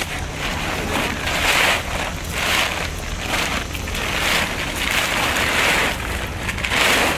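Plastic tarp rustling and crinkling as it is pulled back off a soil pile, in repeated swishes about once a second over a steady low rumble.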